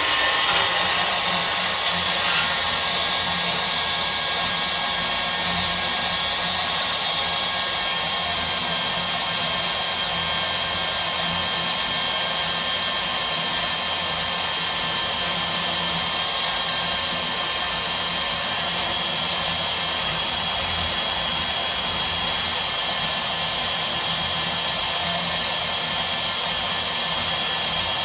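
Milwaukee portable bandsaw running with a replacement blade: a steady motor whine with a low hum that starts just before and holds even throughout.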